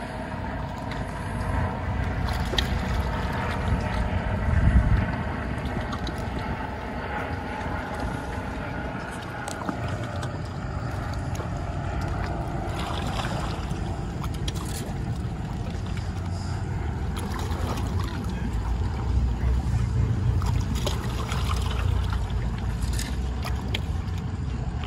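Wind rumbling and gusting on the microphone, with the steady drone of a boat engine that fades away about halfway through.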